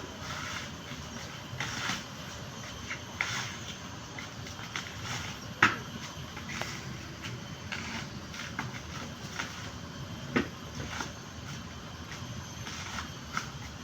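Coconut being husked by hand: irregular knocks and scraping against the fibrous husk, with two sharper knocks about six and ten seconds in.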